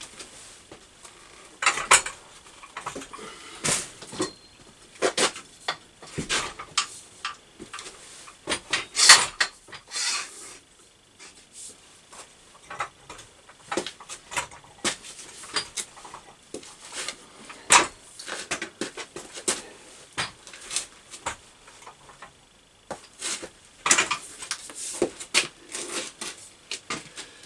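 Irregular metallic clicks and clanks from a hand pipe bender and the steel tube being worked in it, the loudest knock about nine seconds in.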